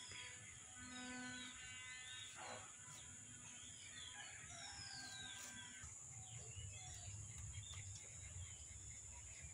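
Faint birds calling, with several short descending whistles, over a steady high-pitched hiss.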